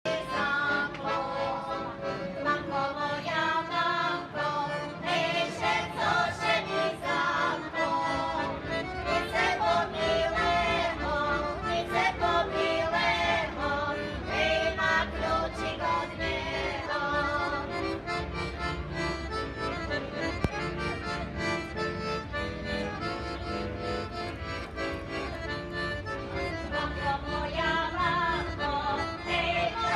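A group of women singing a Slovak folk song together, accompanied by an accordion.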